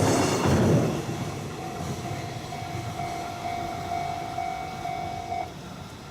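The tail end of a freight train of container wagons rolling past, loud for the first second and then fading quickly. A faint ringing tone sounds in pulses through the middle and stops about five and a half seconds in.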